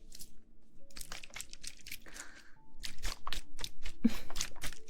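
Close-miked crinkling, crackling and sharp clicks of objects being handled, denser and louder in the second half, with a couple of brief squeaks.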